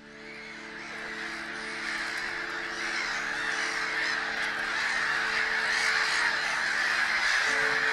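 A colony of black-headed gulls calling: a dense chorus of harsh cries that fades in and grows steadily louder. It is laid over sustained background music chords.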